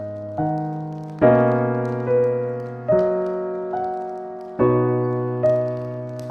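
Slow, calm solo piano music: a chord or single note is struck about every second, and each rings and fades before the next.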